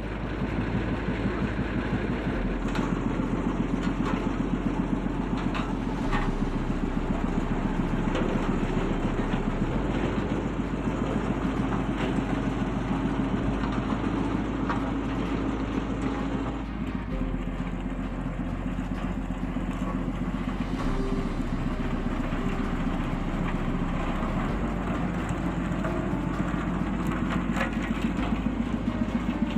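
Road roller's diesel engine running steadily, with a rapid pulsing throb.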